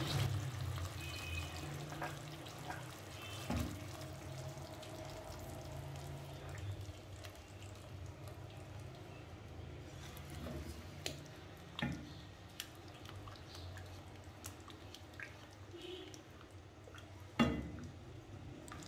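Silicone spatula stirring a thick tomato-and-cream gravy in a nonstick pot: soft wet stirring and slopping, with a few sharp knocks of the spatula against the pot, the loudest near the end.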